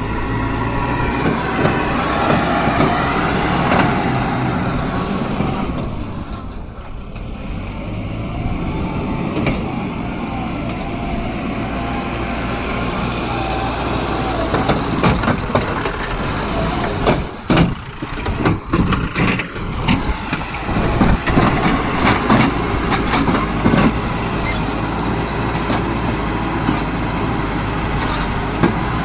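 Heavy diesel engine running steadily, its level easing off and building up again, with a cluster of sharp knocks and clatters about 17 to 20 seconds in.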